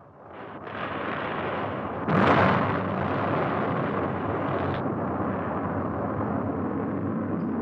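Explosion of an SM-65C Atlas missile: a rush of noise builds, then a loud blast hits about two seconds in. A long, steady rumble follows and turns duller about five seconds in.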